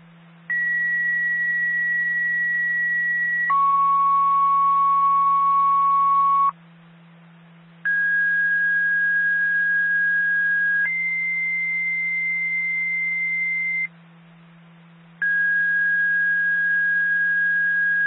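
Two-tone radio paging tones over a scanner: pairs of steady tones, each held about three seconds, the second a different pitch from the first. Two full pairs sound with short pauses between them, and a third begins near the end, over a steady low hum. They are the tone signals that set off outdoor tornado warning sirens for a test.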